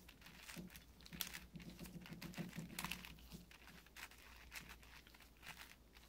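Layers of a plastic 6x6x6 Rubik's cube being turned in quick succession while an algorithm is run: a faint, irregular run of small plastic clicks and clacks.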